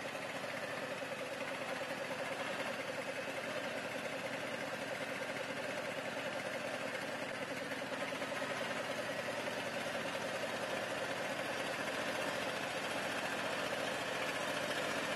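Ride-on thermoplastic road marking machine's 21 hp Honda gasoline engine running steadily as the machine drives along laying a line.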